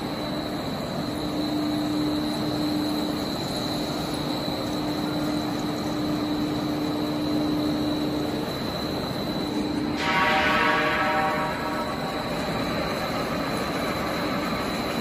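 Automatic copper foil cutting machine running: a steady mechanical hum and hiss with a thin, high, constant whine. About ten seconds in, a louder pitched buzz starts and fades away within about two seconds.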